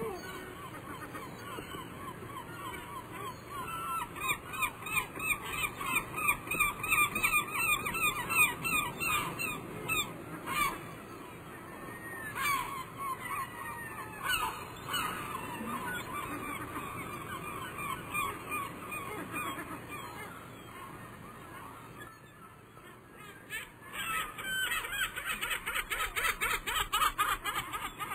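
Birds calling in fast series of short honking notes, about four a second. The calling comes in two loud spells, with a brief lull shortly before the end.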